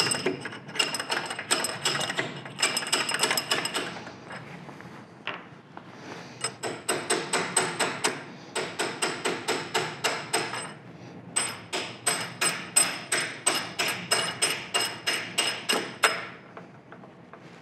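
Rapid light hammer taps with a metallic ring, about four a second, driving a shaft through the shifter yoke of a Monarch lathe headstock. The taps come in three runs, pausing about four and eleven seconds in and stopping about sixteen seconds in. The shaft is binding tight, which the machinist suspects is a burr he missed.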